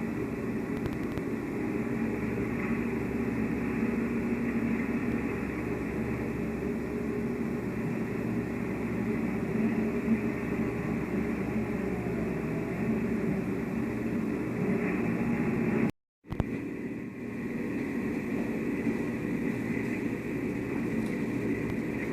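A heavy machine's engine running steadily as a low, continuous rumble. It cuts out abruptly for a moment about two-thirds of the way through, then carries on.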